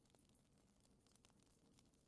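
Faint crackling of a wood campfire, with scattered small snaps and pops from the burning logs.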